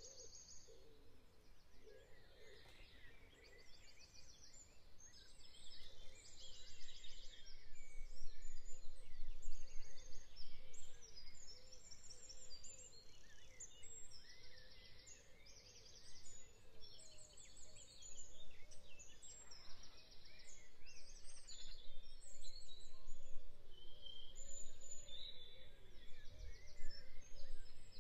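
Songbirds singing in the trees: many short, high trilling phrases, one after another, over a low steady background rumble.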